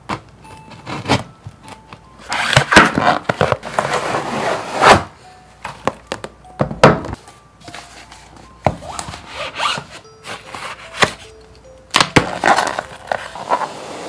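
Cardboard boxes and plastic shrink-wrap being handled and opened: irregular rustling, scraping and crinkling with several sharp knocks, over faint soft background music.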